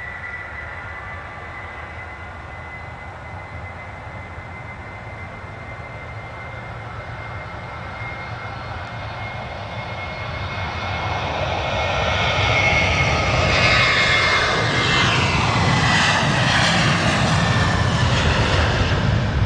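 Boeing 737-800's twin CFM56-7B turbofan jet engines at takeoff thrust as the airliner rolls down the runway. A steady high whine with engine noise under it grows much louder through the second half as the jet passes close by, and the tone sweeps as it goes past.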